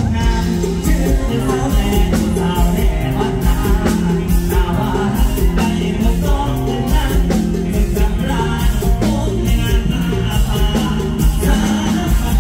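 Live band playing a Thai luk thung song, with a male singer singing into a microphone over drum kit, bass guitar and a steady beat.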